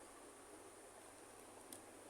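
Near silence: faint steady room hiss, with one faint tap about a second and a half in.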